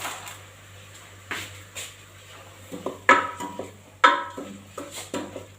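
A spoon knocking and scraping against a metal cooking pot, with two sharp ringing clangs about three and four seconds in and lighter knocks around them.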